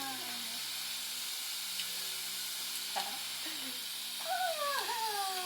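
Steady hiss of running water, with a voice making a few long falling 'ooh' glides; the longest comes near the end.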